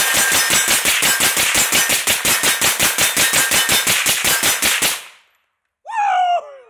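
Suppressed AR-15 in 5.56 fired in a rapid, even string of about thirty shots, roughly six a second, stopping about five seconds in. A brief voice follows near the end.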